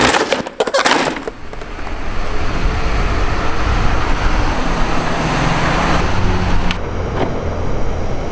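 A skateboard clacks hard against a concrete block at the start, with a second knock just under a second later. Then a steady outdoor rushing noise with a low hum carries on.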